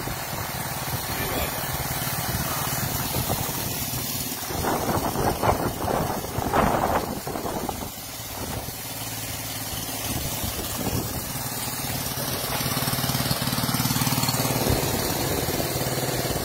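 Small Honda engine running steadily, driving an Aspee HTP high-pressure sprayer pump, with the hiss of the fine spray jet from the lance over it.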